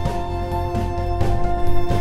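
Background music: sustained instrumental tones over a steady beat.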